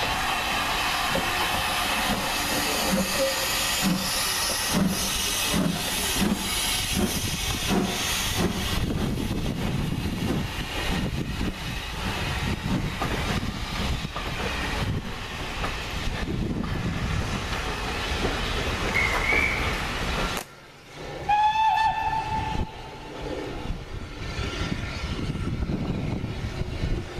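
Steam locomotive working a train out of the station, with regular exhaust beats and hissing steam, then carriages rolling past. About three-quarters of the way through, a short blast on a steam whistle, followed by a train running.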